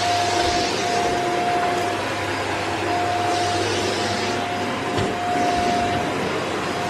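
Shark Anti Hair Wrap Lift-Away vacuum cleaner running as it is pushed over the floor: a steady rush of air with a constant whine that drops out briefly a couple of times.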